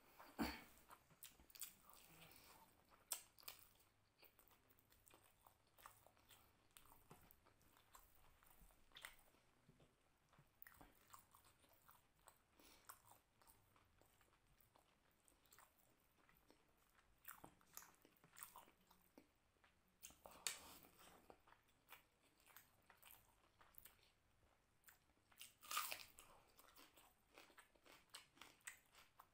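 Faint close-up chewing and eating mouth sounds of a person eating rice and mutton curry by hand: short sharp clicks and smacks coming irregularly, a few louder ones about half a second in, around 3 seconds, about 20 seconds in and near 26 seconds.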